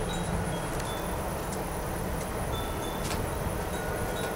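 Distant freight train cars rolling past: a steady low rumble with a few faint clicks.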